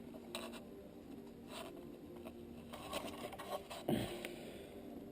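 Faint scrapes and light clicks of exhaust bolts being fitted by hand on a minibike's exhaust, with a soft thump about four seconds in, over a low steady hum.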